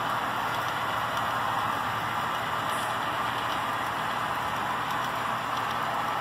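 Model railroad freight cars rolling steadily along the track, a continuous even rolling hiss of small metal wheels on rail.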